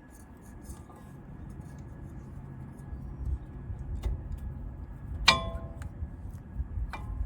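Metal parts clinking during front brake pad work: one sharp clink that rings briefly about five seconds in, and a lighter clink near the end, over low handling noise.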